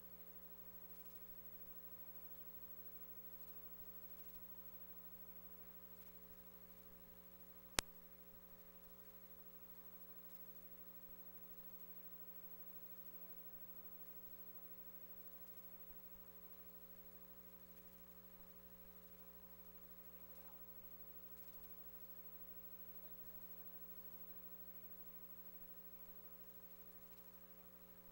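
Near silence: a faint, steady electrical mains hum, with a single sharp click about eight seconds in.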